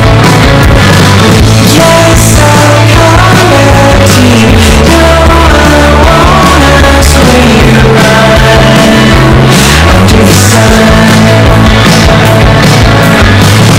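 Loud background rock music with a steady drum beat and sustained bass notes.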